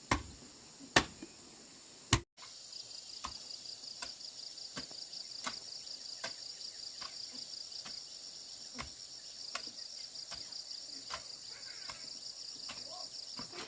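Sharp knocks repeat about every three-quarters of a second. They are loud in the first two seconds and fainter after a brief cut. From just after the cut, insects trill steadily in a high, fast-pulsing buzz.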